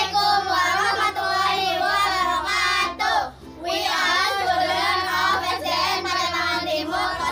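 A group of young girls singing together in unison over held low accompaniment notes, with a brief pause for breath about three and a half seconds in.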